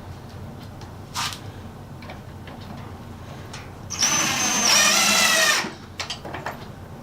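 A power drill runs in one short burst of about a second and a half, its whine shifting slightly in pitch. Before and after it come a few light clicks and knocks.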